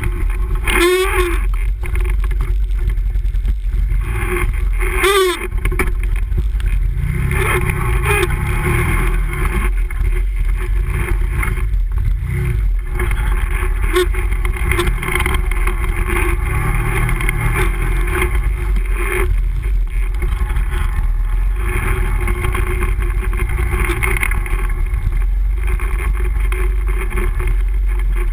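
Can-Am Renegade ATV engine running steadily as it rides along a gravel trail, with gravel and wind noise. Two short wavering squeaks about a second in and near five seconds.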